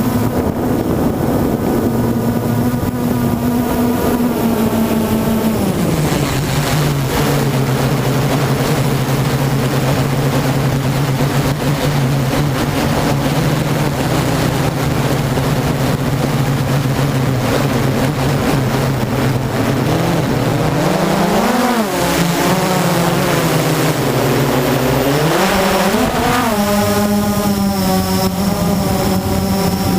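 Blade 350 QX quadcopter's brushless motors and propellers buzzing steadily. The pitch drops about five seconds in, swells up and down twice near the end as the throttle changes, then settles higher again. A rushing noise runs underneath.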